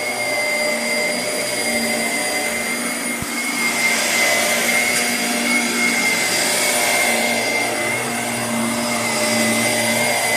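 Shark Navigator upright vacuum cleaner running, a steady rushing air noise with a high motor whine. The rush swells about four seconds in and eases again a few seconds later.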